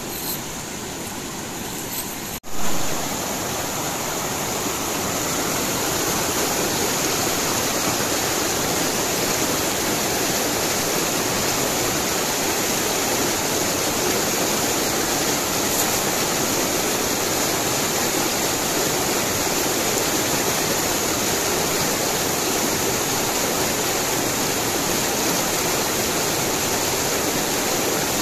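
Rocky river rapids rushing steadily as white water pours between boulders. About two and a half seconds in, the sound cuts sharply and comes back slightly louder.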